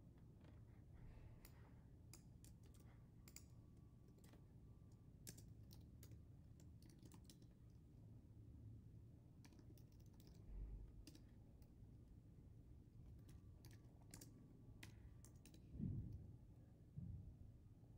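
Faint typing on a computer keyboard: irregular scattered key clicks over a low steady hum, with a couple of soft low thumps near the end.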